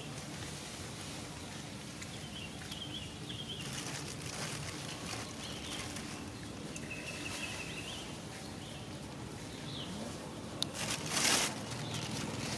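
Outdoor ambience with a low steady hum, a few faint high-pitched chirping calls, and a short burst of rustling noise about eleven seconds in.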